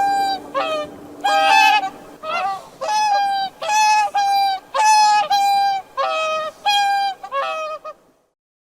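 Swan giving a rapid series of short, nasal honking calls, about two a second, which break off shortly before the end.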